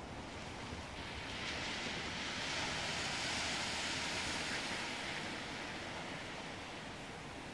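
Small surf breaking on a sand beach and washing up the shore: the hiss swells about a second in, peaks midway, and fades over the last few seconds.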